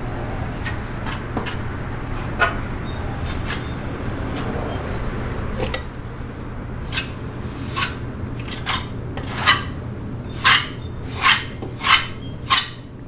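Hand sanding of body filler on a car body panel: rasping rubbing strokes over a steady low hum. The strokes grow louder and more regular near the end, about one every 0.7 seconds.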